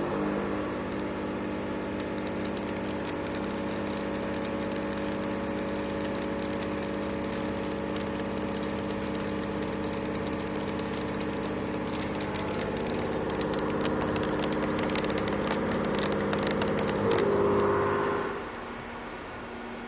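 A 63 mm face mill with HNKX inserts cutting a face-milling pass at 2 mm depth. The spindle gives a steady tone under a dense, fine rattle of the inserts striking the work. The cut starts suddenly, gets a little louder toward the end, and stops about 18 seconds in, leaving the machine's quieter hum.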